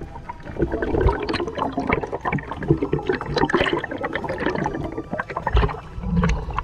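Water sloshing and gurgling close to the microphone, with many small irregular splashes and clicks.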